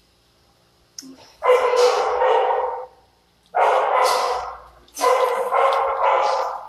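Dog barking in a shelter kennel: three loud spells of barking, each lasting about a second.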